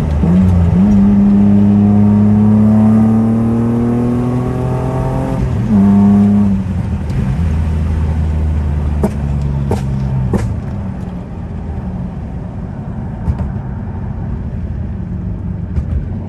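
Car engine and exhaust under acceleration, its pitch climbing steadily through one gear. The sound breaks briefly for a shift about five and a half seconds in, then settles into steadier running, with a few short clicks near the ten-second mark.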